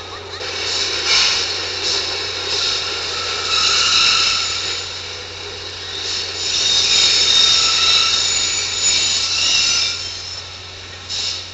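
Subway train moving along the platform, its steel wheels squealing in shrill high tones over a rumble. The squeal swells and fades several times, loudest from about six to ten seconds in.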